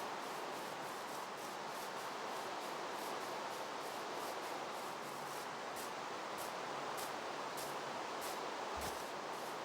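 Steady rain hiss, with faint scattered ticks of drops.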